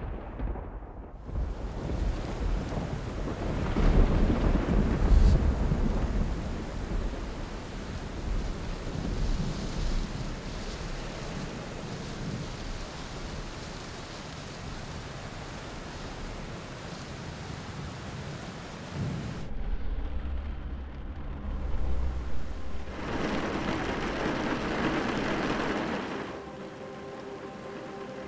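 Steady heavy rain with rolling thunder. The loudest rumble comes about four to five seconds in and another about twenty seconds in. A few steady tones come in near the end.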